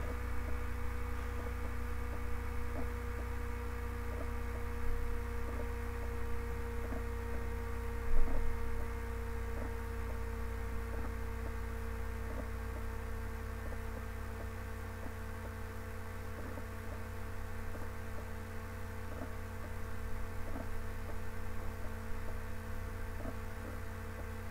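Steady electrical hum, with faint scattered taps and one louder knock about eight seconds in.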